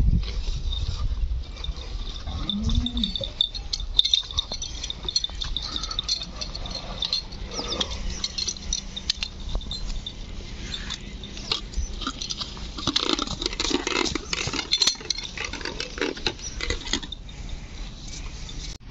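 Goats and sheep stirring in their pen, with one short low call about two and a half seconds in, among scattered clicks and knocks.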